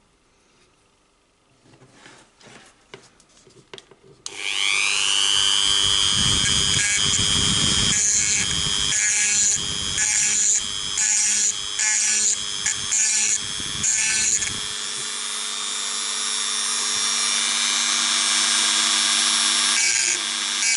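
A Dremel-type rotary tool starts about four seconds in, its whine rising as it spins up, then grinds with a pink grinding stone in the throat of a steel 1911 .45 barrel, in a run of short repeated bursts before settling into a steady grind. The throat and feed ramp are being opened up to improve feeding. A few small handling clicks come before the start.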